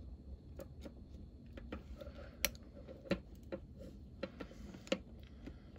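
Faint, scattered small clicks and light rustling as steel hemostats pinch a loop of 550 paracord and pull it through tight knots: about eight sharp ticks spread unevenly over the few seconds.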